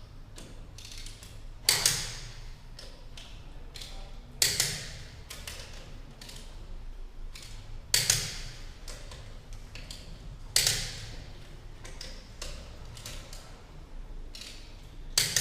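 Click-type torque wrench tightening wheel bolts, clicking sharply five times, every few seconds, as each bolt reaches its set torque, with faint ratchet ticks between.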